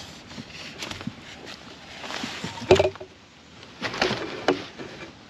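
A landed fish and its landing net being handled by the water's edge: rustling and irregular knocks, the loudest a sharp knock just under three seconds in and another cluster about four seconds in.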